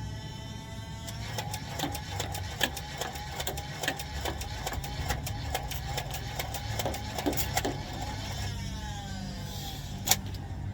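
Motorized Nerf blaster firing darts in a rapid string, about three shots a second, its motor whine dipping with each shot and then winding down. A single sharp click comes near the end.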